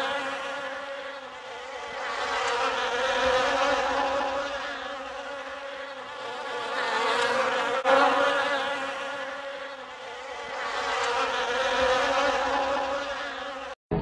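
Heavy buzzing snoring that swells and fades with each breath, about every four seconds, three times over, then cuts off abruptly near the end.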